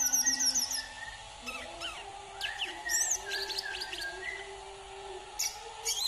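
Caged male sunbird singing. It opens with a rapid run of thin, high sweeping notes, then gives scattered sharp chirps and short trills, with two quick high notes near the end.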